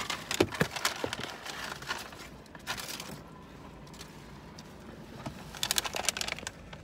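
Handling noise from the phone that is recording: rustles and clicks as it is moved in the first couple of seconds, then a short burst of sharp clicks and knocks about six seconds in as fingers grab it and cover the lens.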